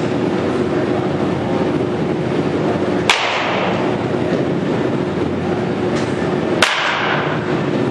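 Baseball bat hitting pitched balls twice, about three and a half seconds apart, each a sharp crack with a short ringing tail. Under them runs a steady hum with a low drone.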